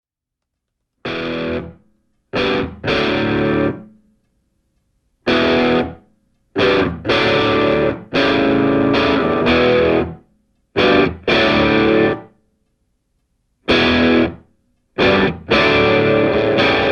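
Intro music: distorted electric guitar chords played in short, stop-start stabs with dead silences between them. Toward the end the chords run on without a break.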